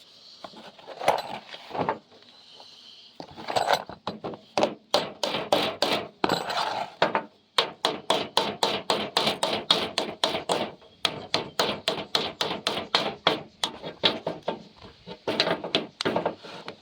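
Hammer blows on a seized, rusted part of a Walbro LMT carburetor, struck to knock it loose. A few scattered blows come first, then steady repeated blows at about three a second.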